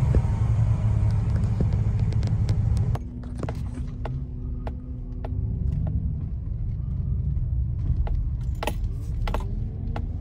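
Low rumble of a tuned 2018 GMC Sierra's 5.3-litre V8 through a Magnaflow exhaust, idling and creeping forward, heard from inside the cab. The rumble drops in level about three seconds in and rises gently in pitch around the middle. Scattered sharp clicks and light rattles sound over it.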